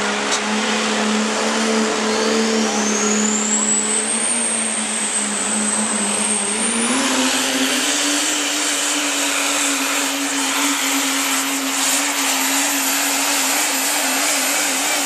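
Super modified 4x4 diesel pulling truck at full throttle pulling the sled: a loud, steady engine note with a turbocharger whine that rises to a high whistle over the first few seconds. About seven seconds in, the engine note and the whistle both step up higher.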